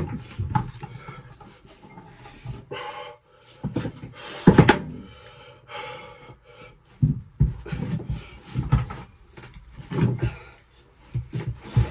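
A hand tool scraping and knocking at a plywood floor in irregular strokes as it is cut away to let a shower tray sit flush. One sharp knock comes about four and a half seconds in. Later come shuffling and rubbing sounds of a body moving on the floor.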